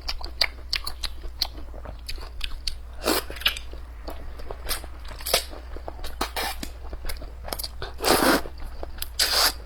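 Close-miked eating: a person chewing and biting, with many small crunchy clicks and several louder short bursts of mouth noise, the longest about eight seconds in.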